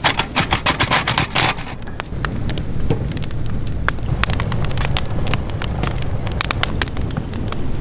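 Cooking fire crackling and popping: a dense run of sharp pops in the first couple of seconds, then scattered pops over a low rumble.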